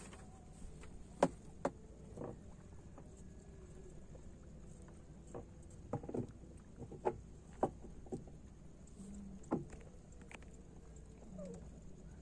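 Irregular hollow knocks and taps against a small wooden boat as a fisherman works a hand line, about ten in all, bunched together in the middle.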